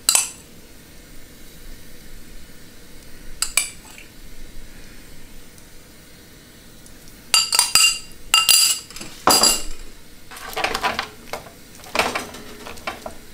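Metal utensils, a spoon and then tongs, knocking and scraping against a metal roasting tray as yogurt-coated chicken wings are tossed. Single clanks early on and about three seconds in, a cluster of sharp ringing clinks around eight to nine seconds in, then rougher scraping.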